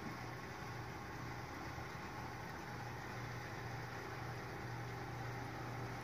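Steady low hum of a Schweiss bifold door's electric lift motor running as it raises the door on its lift straps.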